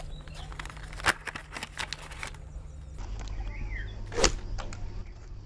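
Paper mailer envelope torn and handled, with scattered crackles and rustles. Then scissors cut through a cardboard-and-plastic blister pack, with one loud snip about four seconds in.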